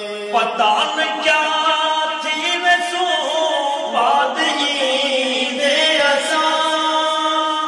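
Male voices singing a Saraiki devotional nazam in a chanting style, with long held notes that bend in pitch, a new phrase starting about half a second in and another about four seconds in.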